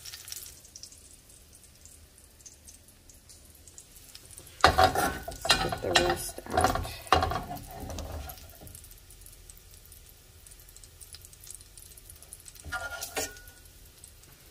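A metal slotted spoon scrapes and clinks against a stainless steel frying pan as crispy chopped bacon is scooped out of its rendered fat, while the hot bacon grease sizzles faintly. The scraping comes in a loud cluster from about four and a half to eight and a half seconds in, with another short burst near the end.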